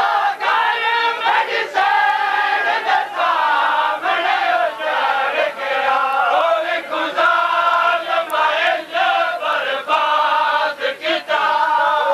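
Crowd of male mourners chanting a noha together in a wavering melody, with sharp hand slaps of matam chest-beating striking over and over through the chant.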